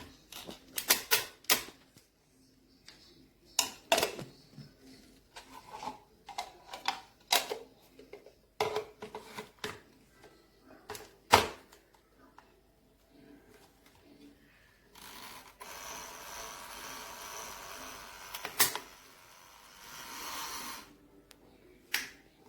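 A series of irregular sharp clicks and knocks, as of hard parts being handled and set down, followed by a few seconds of steady hissing rustle and then a shorter burst of it.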